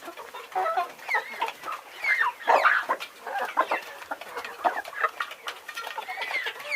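Several chickens clucking together, short overlapping clucks and squawks with no pause, loudest about two and a half seconds in.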